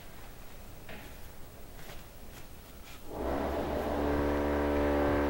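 Faint clicks of soil and a stick being handled, then about three seconds in a steady engine drone comes in and holds at an even pitch, much louder than the clicks.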